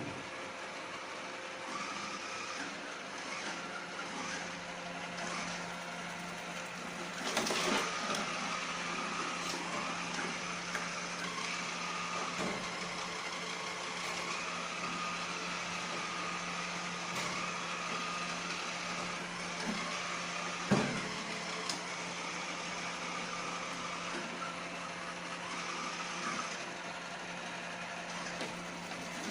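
Iseelife robot vacuum running with a steady motor whirr and hum, with two sharp knocks, one about a third of the way in and a louder one about two thirds in.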